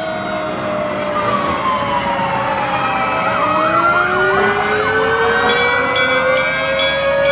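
Several fire truck sirens sounding at once. Slow rising and falling wails overlap one another, with a quick yelping warble about halfway through.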